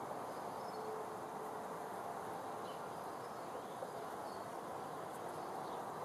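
Steady outdoor ambience: an even background hiss with faint, short, high chirps scattered through it.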